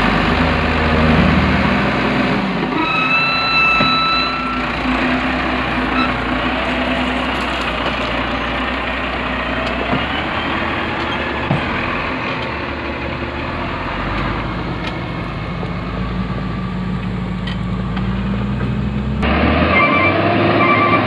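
Motor grader's diesel engine running steadily as the machine grades a dirt road, with a short high whine about three seconds in and a quick run of beeps near the end.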